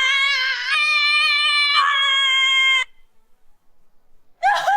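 A high, steady musical note, sung or synthesized, held with a slight waver and stepping to a new pitch twice before cutting off sharply about three seconds in. Near the end a different sound with a quickly wavering pitch starts.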